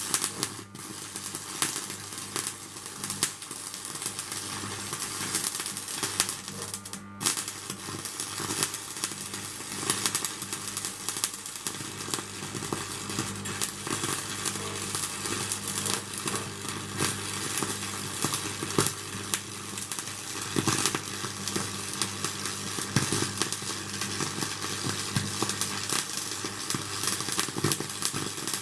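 Stick welding arc crackling and sizzling steadily, with a brief break about seven seconds in, over a steady low hum.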